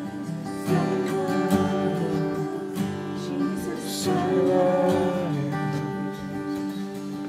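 Music: an acoustic guitar strumming slow, sustained chords.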